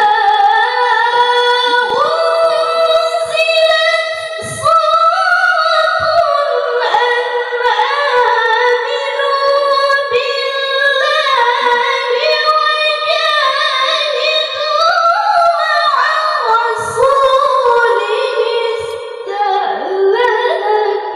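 A young female Quran reciter (qoriah) chanting alone into a microphone in the melodic tilawah style: long high notes held and ornamented with quick melismatic turns, phrase after phrase with brief breaths between.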